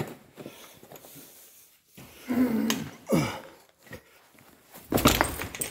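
A person grunting with effort while scrambling over loose rock, then a loud thump about five seconds in.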